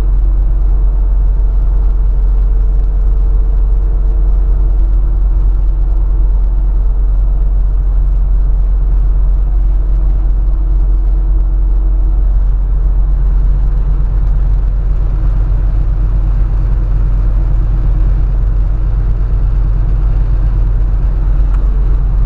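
Cab noise of a diesel pickup truck cruising at highway speed: a steady, loud low drone of engine, tyres and road. A faint steady whine in it fades out about halfway through.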